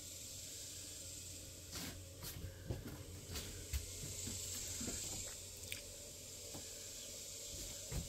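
Quiet room tone inside a small travel trailer: a steady hiss and low hum, with scattered light knocks and creaks starting about two seconds in, from footsteps and handling as the phone is carried through.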